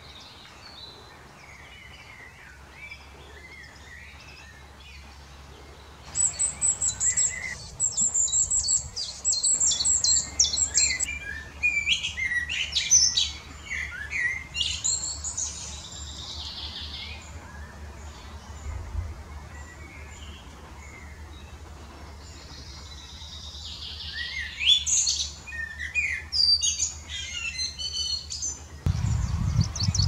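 Common blackbird singing in loud, varied phrases with high, rapid notes, pausing for several seconds midway. Faint bird chirps come before the song starts, and near the end a chaffinch's song begins.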